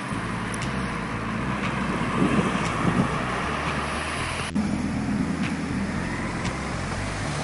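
Sports-car engines in city traffic: a red Ferrari's engine running as it drives by, then, after a cut about halfway through, a black Maserati GranTurismo's V8 pulling away, its engine note louder and steadier.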